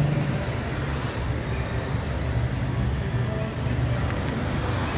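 Street traffic: cars running, a steady low engine rumble with even road noise.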